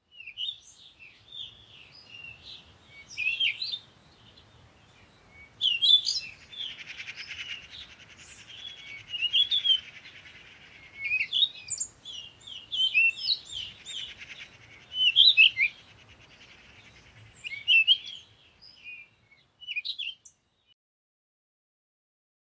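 Several birds chirping and calling, with many short sweeping notes in quick, irregular succession. A fainter buzzing trill joins in twice for a few seconds each time. The calls fade out near the end.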